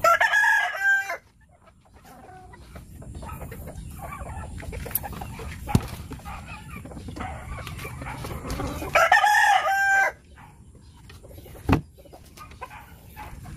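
A rooster crowing twice, once at the start and again about nine seconds in, each crow lasting about a second. A single sharp knock comes near the end.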